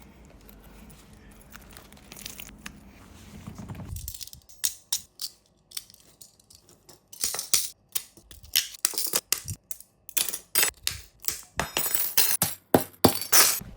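Paper or plastic packaging crinkling and tearing as something is unwrapped by hand, in quick sharp bursts that start about four seconds in and come thicker near the end. Before that, only a low steady hum.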